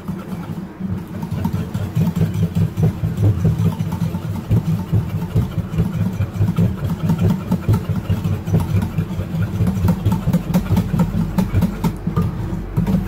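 Wire whisk beating yogurt and cornstarch in a terracotta bowl: a fast, steady run of scraping and clinking strokes against the bowl.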